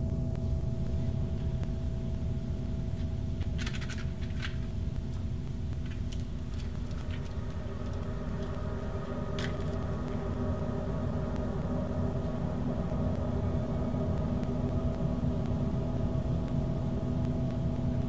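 A low, steady rumbling drone with several held tones over it, and a few short clicks about four and nine seconds in.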